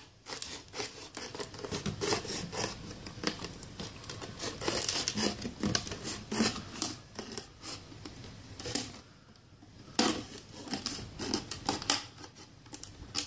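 Utility knife blade sawing through the wall of a thin plastic water bottle: an irregular run of scraping strokes with sharp clicks and crackles as the plastic gives, easing off briefly about three-quarters of the way through.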